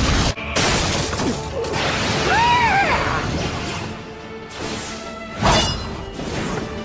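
Splintering and cracking wood sound effects over dramatic background music, with a short rising-and-falling whine near the middle and a sudden loud impact about five and a half seconds in.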